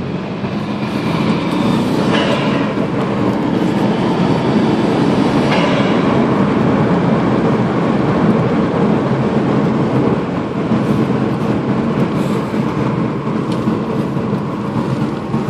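Steady drone of a Subaru Impreza GC8's flat-four engine with road noise, heard inside the cabin while driving; it gets louder about a second in and holds steady.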